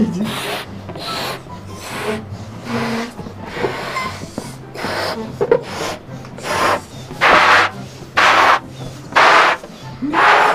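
Two people blowing up rubber balloons by mouth: a run of hard, breathy blows about one a second, the loudest ones in the second half.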